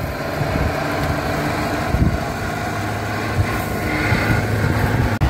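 Steyr-Puch Haflinger's small air-cooled flat-twin engine running as the vehicle drives over a dirt track, a steady low hum that grows a little louder toward the end.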